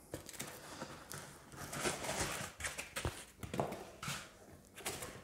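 Hands pulling foam packing pieces and a white cardboard box out of a shipping carton: irregular scuffing and rubbing of foam and cardboard, with a few light knocks about three seconds in.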